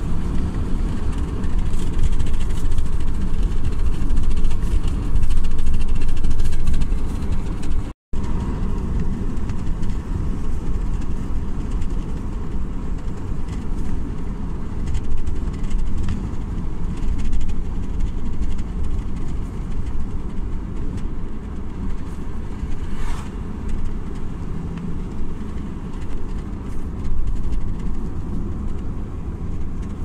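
Steady road rumble and engine hum of a car driving along a road, heard from inside the car. The sound cuts out for a moment about eight seconds in.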